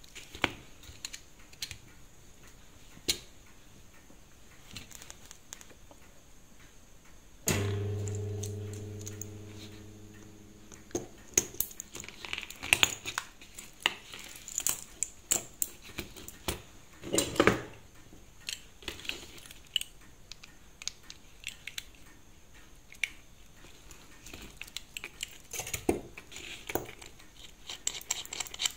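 Small metallic clicks, clinks and scrapes as a Seiko 5 automatic watch's steel case and bracelet are handled and its caseback is worked open by hand. About seven seconds in, a low hum starts suddenly and fades over about three seconds.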